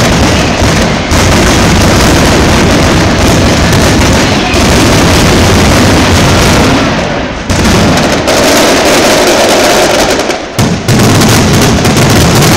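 Mascletà firecrackers (masclets) going off in an unbroken, very loud barrage, the bangs so close together that they merge into one continuous din, briefly easing about seven and ten seconds in. This is the dense closing stretch of the display, the terremoto.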